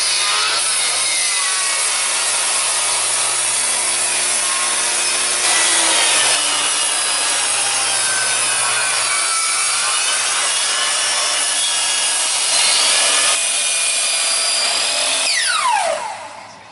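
Benchtop table saw ripping lengthwise through a dry, dead spruce log, a loud steady cutting noise. Near the end a motor winds down with a falling whine.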